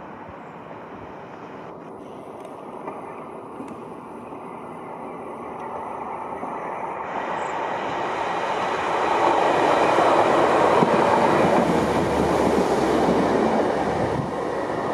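Transport for Wales Class 150 Sprinter diesel multiple unit approaching and passing beneath: its diesel engine and wheels on the rails grow steadily louder, are loudest about ten seconds in, then ease off a little as it goes under.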